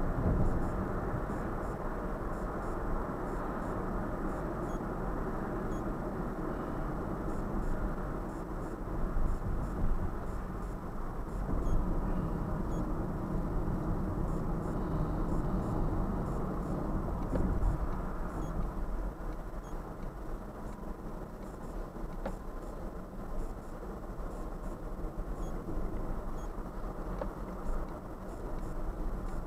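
Car driving along an expressway, heard from inside the cabin: a steady rumble of tyre and engine noise with small swells.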